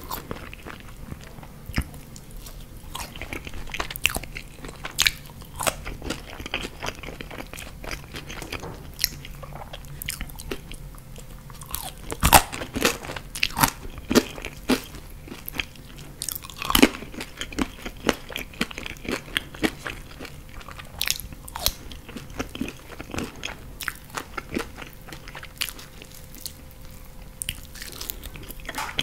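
A person chewing and crunching fried food close to the microphone: french fries, then a bite into a sauced chicken wing near the end. The crunches come as many irregular sharp cracks with wet mouth sounds between them.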